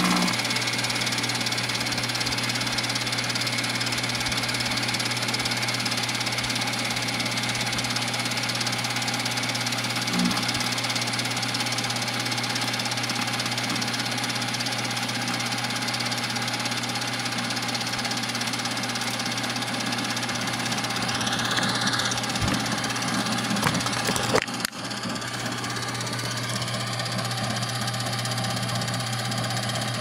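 Microwave oven running with a steady electrical hum while it cooks a cordless drill. A sharp crack comes about twenty-four seconds in, after which the hum goes on a little quieter.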